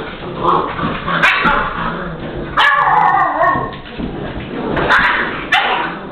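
Pit bull puppies play-fighting, with short sharp yelps and whines. One longer whine, about two and a half seconds in, falls in pitch.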